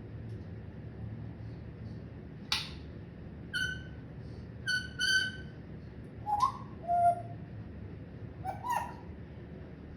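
Pet parrot giving a string of short whistles and squawks, about eight calls with pauses between them: a sharp squawk first, then high whistled notes, then lower ones.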